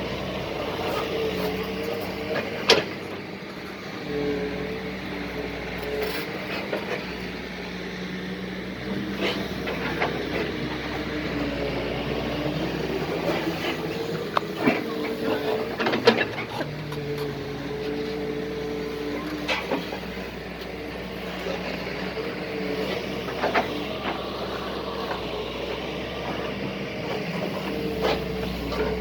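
Doosan DX140 excavator running and working, its engine and hydraulics rising and falling in pitch as the load changes, with scattered sharp knocks and clanks.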